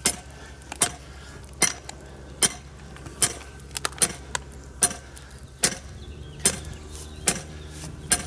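Sledgehammer striking the top of a copper ground rod in a steady beat of sharp blows, about one every 0.8 seconds, driving the rod the last stretch into hard ground.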